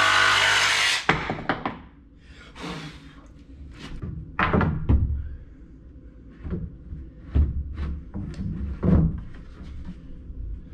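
A cordless jigsaw running steadily as it cuts a pine board, stopping abruptly about a second in. Then scattered thuds and knocks as a tongue-and-groove pine board is pushed up and fitted against the ceiling.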